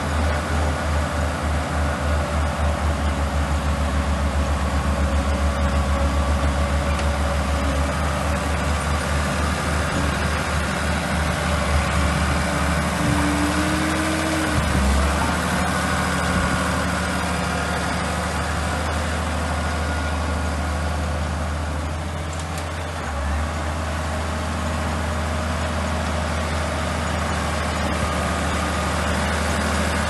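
Old Komatsu crawler bulldozer's diesel engine running under load as it pushes gravel, a steady low engine sound that pulses evenly through the first several seconds.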